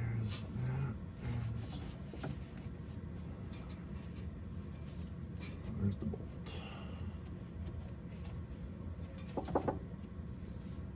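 Hands and a tool working in a cramped spot around a car's starter motor and exhaust header: low rubbing and fumbling with a few light metallic clicks, a small cluster of them near the end. A man mutters faintly at the start.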